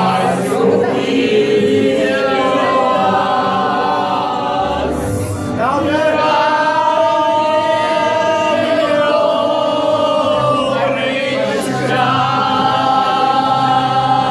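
A mixed group of young men and women singing together, holding long notes, with short breaks about five seconds in and again near eleven seconds.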